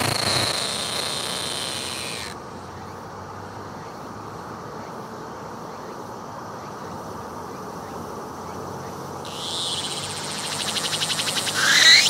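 Cicada singing at close range. A call fades out in the first couple of seconds. After a pause, a new song phrase starts about nine seconds in as a rapid pulsing buzz that grows louder toward the end.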